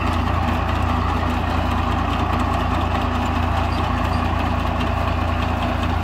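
Tractor engine running steadily as it pulls a Sunking potato digger through the soil, with a steady hiss and rattle of soil and potatoes sifting over the digger's grid.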